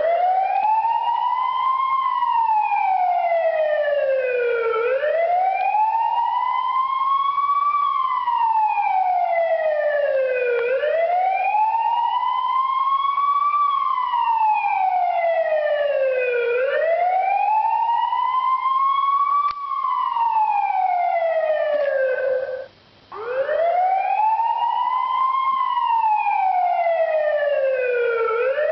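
Recorded police wail siren played as a phone ringtone, sweeping slowly up and down, rising for about two seconds and falling for about three, about every six seconds. It breaks off briefly about 23 seconds in, then starts a new rise.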